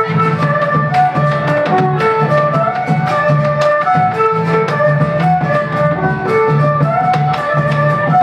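Live instrumental folk music: acoustic guitars and a melody instrument playing a tune over a large bass drum, a bombo, beating a steady rhythm.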